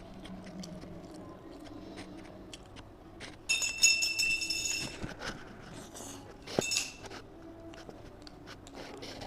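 Mouth and chewing sounds of someone eating a beef burger: small wet clicks and smacks throughout. A shrill, high-pitched sound about three and a half seconds in, lasting about a second, is the loudest thing, and a short sharp sound follows about two seconds later.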